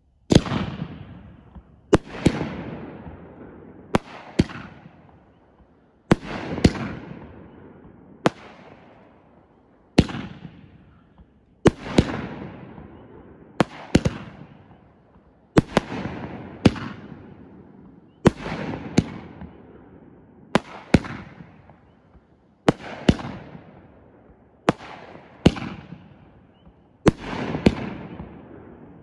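A 16-shot consumer firework cake, Wizard Fireworks' ProLine Brocade Crown with Color Falling Leaves, firing shot after shot. Sharp bangs, often in quick pairs, come about every two seconds, and each dies away in a fading tail.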